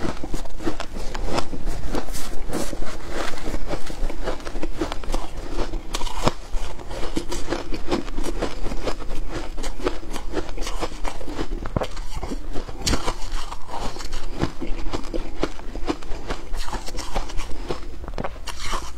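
Shaved ice being chewed and crunched, with a metal spoon scooping through the ice in the bowl: a close, steady stream of crisp crackles and small crunches.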